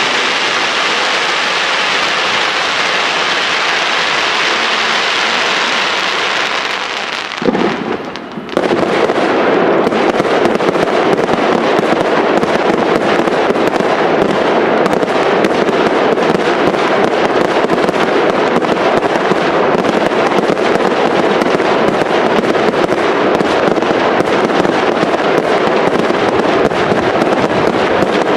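Fireworks display: a dense, continuous mass of rapid small bangs and crackles from many bursting effects. It drops away briefly about seven and a half seconds in, then resumes just as dense.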